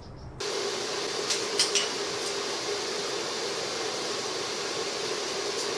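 Steady fan hum and hiss, with three light clicks about a second and a half in.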